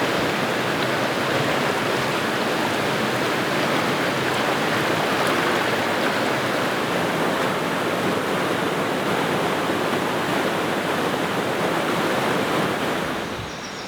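Steady rush of fast-flowing water in a rocky mountain stream, an even, unbroken noise. It drops to a quieter level about a second before the end.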